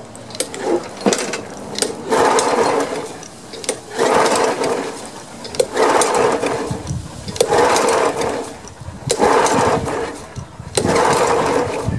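Honda engine on a Snapper Ninja walk-behind mower being cranked by its pull-cord starter: about six pulls roughly two seconds apart, each a whirring burst about a second long, with no steady running between them. The engine has been primed with carb cleaner and its fuel line is off.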